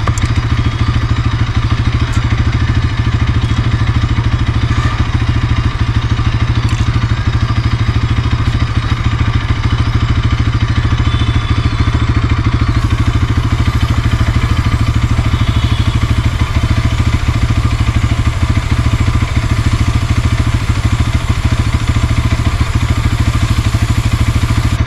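Bajaj Pulsar NS200 BS6's single-cylinder engine idling steadily in gear, turning the rear wheel and drive chain.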